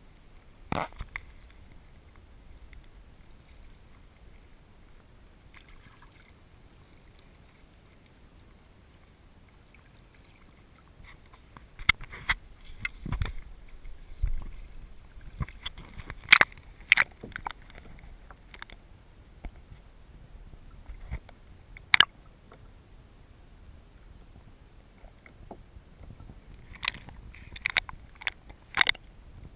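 Small waves lapping against a kayak hull over a low, steady background, with scattered sharp knocks and clicks that come in clusters from about the middle on, the loudest about two-thirds of the way through.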